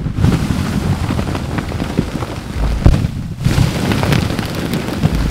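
Film-set pyrotechnic explosion in wet mud: clods of earth and debris shower down with a dense crackling patter. Another blast goes off about three seconds in.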